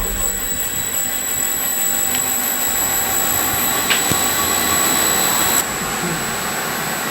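Steady rushing noise with a thin high whine, dropping abruptly in level about five and a half seconds in.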